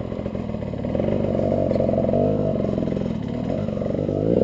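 Dirt bike engine running and being revved, its pitch climbing and dropping with the throttle in several blips.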